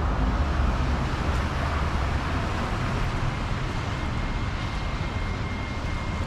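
Steady wind noise buffeting the microphone over the hiss of traffic on a wet street.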